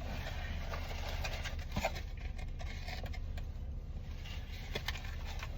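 Faint rustling and small clicks of a fast-food sandwich wrapper being opened and handled, over a steady low hum from the car's running engine.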